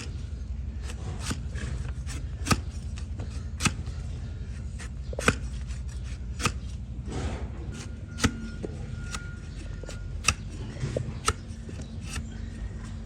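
A trimming blade cutting into a donkey's hoof horn: sharp crisp cuts about every second or so, over a steady low hum.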